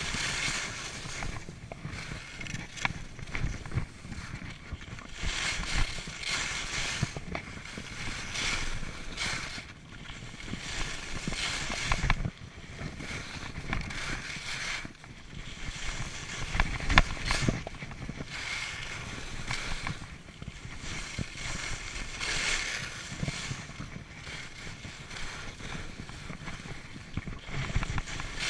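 Skis carving turns on packed piste snow: a scraping hiss that swells with each turn every two to three seconds. Wind buffets the microphone underneath.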